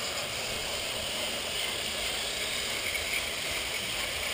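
Many battery-powered Plarail toy trains running together on plastic track: a steady, even noise with no separate clicks or knocks.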